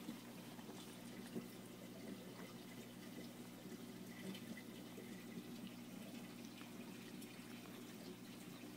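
Aquarium filtration running: a steady low pump hum with trickling, dripping water, faint. A single soft knock about a second and a half in.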